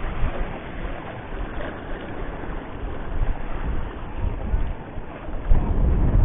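Wind buffeting the microphone over small waves washing against rocks. The wind rumble grows louder about five and a half seconds in.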